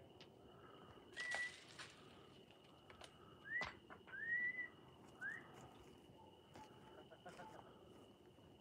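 Four faint, short whistles, each gliding up in pitch, come over the first half. A steady, thin high-pitched tone and a few faint sharp clicks run beneath.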